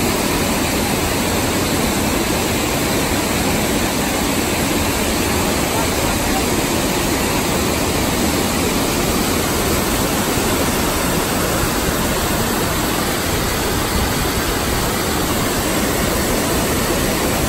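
Waterfall pouring over rocks close by: a loud, steady rush of water.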